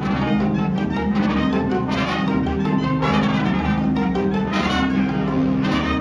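High school indoor winds ensemble playing loud music with brass to the fore over sustained low notes, punctuated by accented full-band chords.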